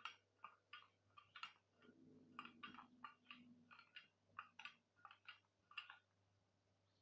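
Metal spoon clinking and scraping against a small glass bowl while stirring cocoa powder into a paste: quiet, irregular ticks, about two or three a second.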